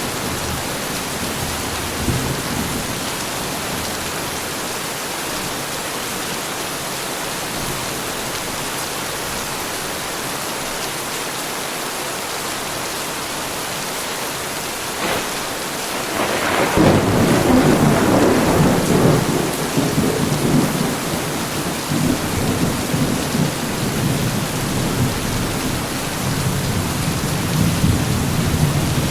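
Heavy rain falling steadily. About halfway through, a thunderclap breaks in with a sharp crack and rolls on as a deep rumble for more than ten seconds.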